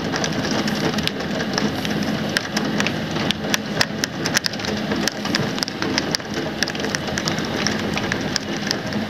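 Steady rain falling during a thunderstorm, with many individual drops tapping sharply on a surface close by.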